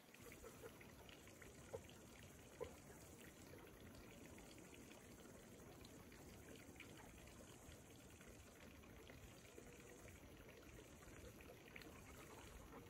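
Near silence: a faint, steady background hiss by the pond, with a couple of soft ticks in the first few seconds.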